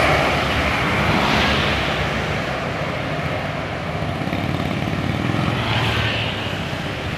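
Road traffic with large diesel tour buses passing: a steady engine rumble under tyre and road roar, easing over the first few seconds and building slightly again near the end.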